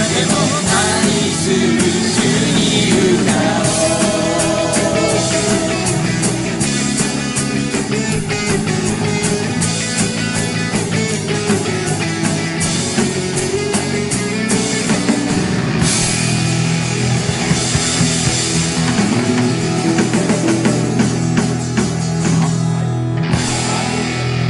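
Live rock-style worship band music: electric guitars and a drum kit playing together, with a short break near the end.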